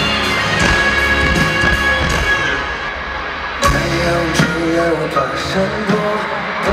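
Live concert music: a held instrumental passage, then a sharp hit about three and a half seconds in, after which a male voice sings over the band.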